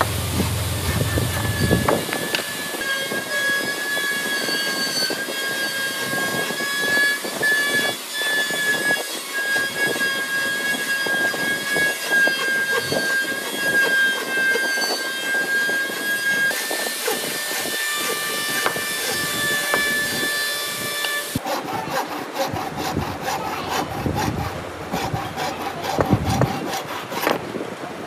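Hand saw cutting through a wooden block in repeated back-and-forth rasping strokes, with a steady high ringing tone alongside for much of the time. About two-thirds of the way in, the strokes become quicker, short and even.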